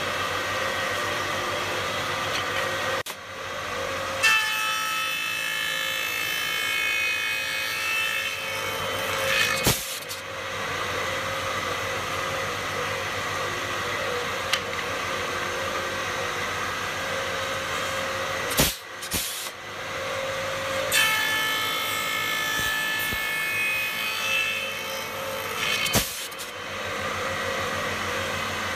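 A woodworking machine runs steadily, making two cuts through wood of about five seconds each, one early and one past the middle, that ring with a high whine. Sharp knocks come before and after each cut as the workpiece is set in and taken out.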